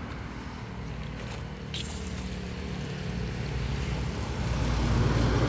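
A motor vehicle's engine rumbling and growing steadily louder, as if it is coming closer, with a brief hiss about two seconds in.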